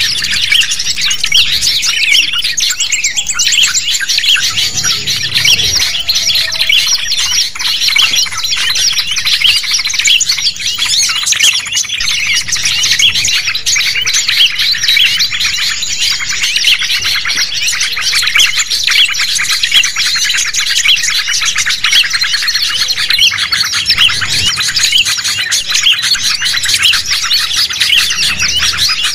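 Dense chorus of many small songbirds chirping and trilling over one another without a break: a mixed-species "noisy birds" lure recording (suara pikat) of the kind played to draw wild birds in.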